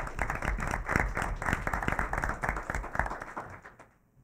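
A small group of people applauding, a few pairs of hands clapping quickly, tailing off about three and a half seconds in.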